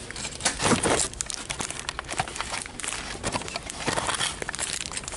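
Close crinkling and rustling handling noise with many small irregular crackles.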